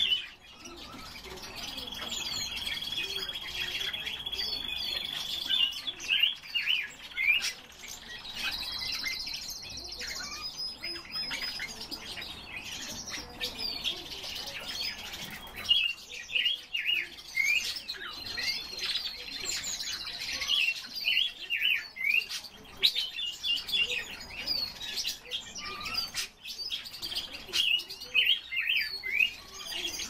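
Red-billed leiothrix (Pekin robin) and other cage birds chirping and calling: a steady stream of short high chirps, with a long steady whistled note near the start and two shorter trilled whistles later on.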